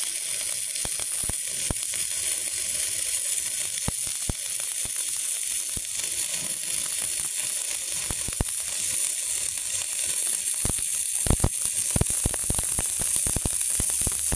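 Stick (shielded metal arc) welding arc from a MultiPro EG 200A-SC inverter welder, burning steadily without going out: a continuous crackling sizzle with many sharp pops, which come thicker near the end.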